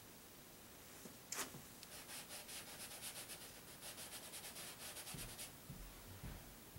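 Paint being scrubbed onto a canvas in quick, short strokes, about five a second, starting with a single knock. A few dull thumps come near the end.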